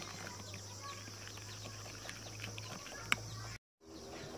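Plastic spoon stirring a runny ube mixture in a bowl, with birds chirping in the background over a steady low hum. A single sharp click comes about three seconds in, and the sound drops out briefly near the end.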